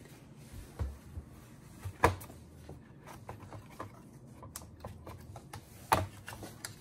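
Scattered clicks and light knocks of a 2006 MacBook Pro's aluminium case being handled on a wooden workbench as the top case is pried up at its front edge, the sharpest knocks about two seconds in and near the six-second mark.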